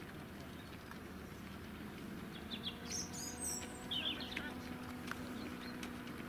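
Faint outdoor ambience: a few short bird chirps, and a steady low engine hum from a slow-moving vehicle that sets in about two seconds in.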